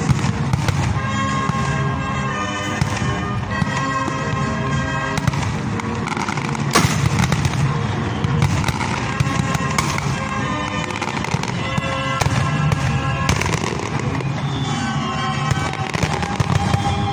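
Aerial fireworks bursting overhead in a dense run of bangs and crackles, the sharpest bang about seven seconds in, with music playing underneath.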